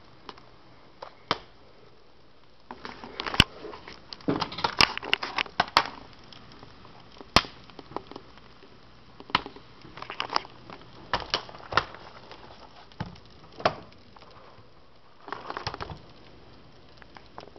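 Popcorn kernels popping inside a Jiffy Pop foil-dome pan on a stovetop burner: irregular sharp pops, a quick flurry from about three to six seconds in, then scattered single pops.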